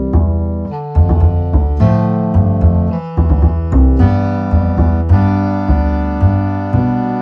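Background music: piano-like keyboard chords over a low bass line, with new notes struck about every half second.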